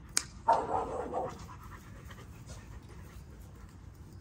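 XL bully dogs panting, with a sharp click and a brief louder sound about half a second in.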